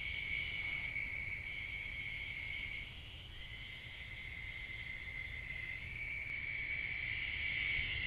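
Steady high-pitched chorus of night insects, a continuous trill that dips briefly about three seconds in.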